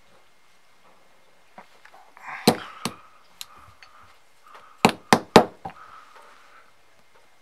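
A small metal motor and its fittings being handled and fitted together by hand: a sharp click about two and a half seconds in, two lighter ones soon after, then three quick clicks close together near five seconds, with light rubbing and scraping between them.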